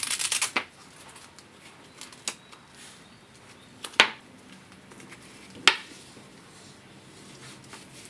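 A hook-and-loop (Velcro) strap on a padded nylon dog collar ripped open in a brief rasping tear. Then come sharp clicks from the collar's metal buckle hardware as it is handled: a faint one, then two loud ones about a second and a half apart.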